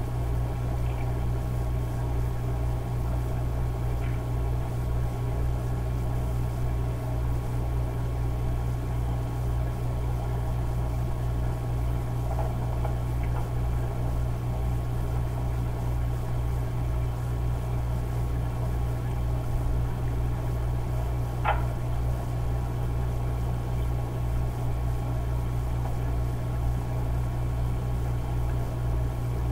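Steady low mechanical hum of machine-shop machinery, with a single sharp click about two-thirds of the way through.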